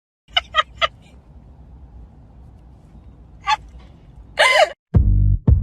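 An animal's short, sharp pitched calls: three in quick succession, one more about three seconds in, and a longer, louder call near the end. Then music with a heavy, even beat starts.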